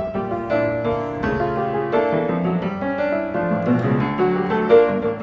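Background piano music: a light melody of many quick notes over lower chords.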